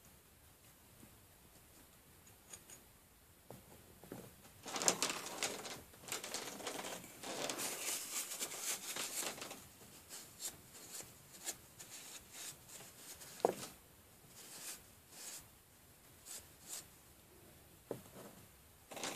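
Paper towel rustling and crinkling as a small metal engine part is wiped clean. The rustling starts about five seconds in and lasts about five seconds. Lighter handling follows, with small clicks and one sharper knock.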